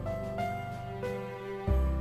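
Background music: held melody notes over a deep bass that drops out mid-way and comes back near the end.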